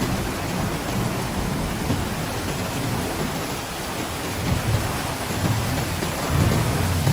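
Heavy rain falling steadily, with low rumbles swelling up twice in the second half.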